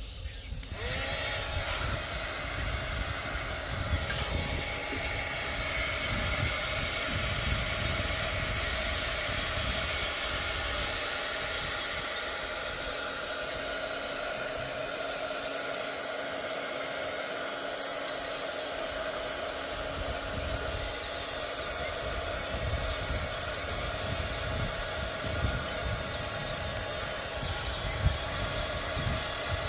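Small handheld craft heat gun switched on just under a second in, then blowing steadily: a constant rush of air with a faint fan whine, aimed at a fabric flower to melt its glue.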